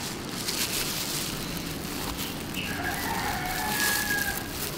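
A rooster crowing, one long drawn-out call from about halfway through to near the end, over a steady hiss of background noise and faint scraping of a knife through durian husk.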